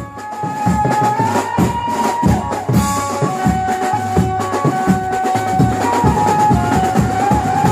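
Background music from a Mumbai banjo-party band: a held melody line over steady, fast drumming.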